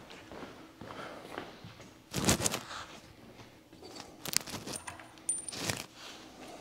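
Short clinks and knocks of small hard parts being picked up and handled, in three brief clusters, the loudest about two seconds in.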